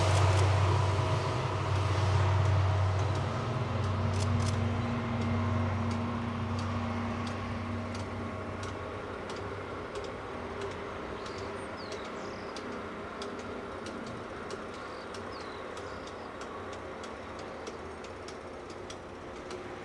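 Diesel railcar running away along the track, its low engine hum and rail noise fading steadily over about ten seconds and leaving faint background noise.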